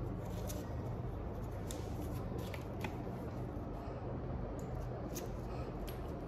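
Hands handling plastic packaging or a plastic watch case: a few faint, scattered clicks and rustles over a steady low background hum.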